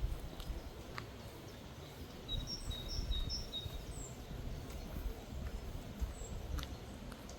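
Small birds chirping: a quick series of short high chirps about two to four seconds in, with a few more single chirps later, over a low outdoor rumble and a couple of sharp clicks.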